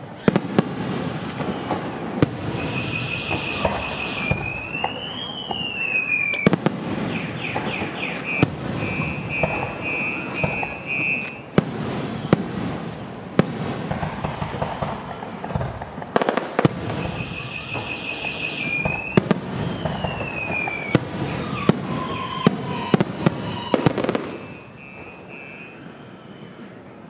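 Aerial fireworks shells bursting overhead in a dense volley of sharp bangs and crackle, dying down about three seconds before the end. Behind them an electronic alarm cycles through steady beeps, a rising-and-falling whoop and quick pulses, twice over.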